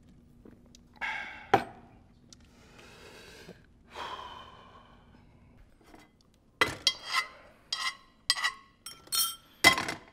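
A man breathes out heavily, sighing after a swig from a glass bottle, with a short knock about a second and a half in. From about six and a half seconds in comes a run of about eight sharp, ringing clinks and knocks of glass and dishes being handled on a counter, the last one the loudest.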